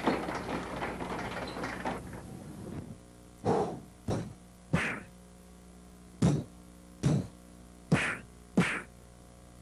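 Fistfight punches: after a short scuffle, seven sharp whacks land in the back half, spaced unevenly from about half a second to a second and a half apart.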